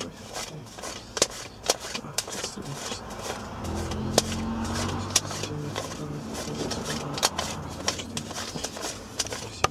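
Paper banknotes being counted by hand, each note flicked through with a crisp snap, several a second. A low hum swells and fades in the middle.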